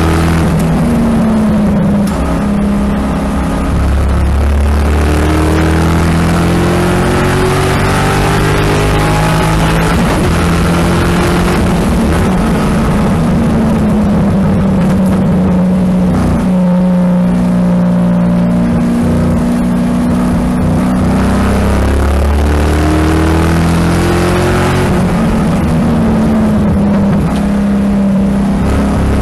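GT2-spec 2007 Corvette C6 Z06's 7.0-litre LS7 V8 at full track pace, heard from inside the cabin. The engine note climbs and falls back again and again as the car accelerates down the straights and slows for the corners.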